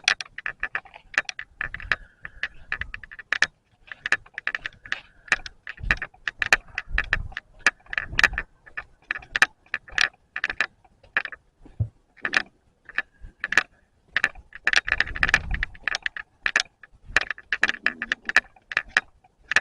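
Loose on/off switch of a camcorder rattling in dense, irregular clicks, picked up by the camera's own microphone.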